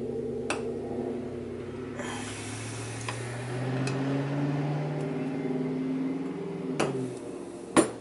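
A low mechanical hum whose pitch drifts slowly up and down, with a few sharp metal clicks of a hand tool on the throttle body; the loudest click comes near the end.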